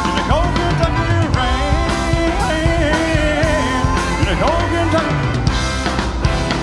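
Live band with drum kit, bass guitar, keyboards and electric guitar playing an instrumental passage of a rock-and-roll ballad, with melodic lines that slide between notes over a steady drum beat.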